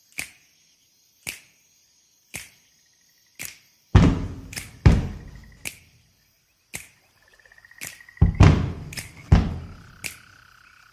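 Sparse opening of a recorded song: a sharp click, like a finger snap, about once a second, joined by a few deep bass hits and brief high tones.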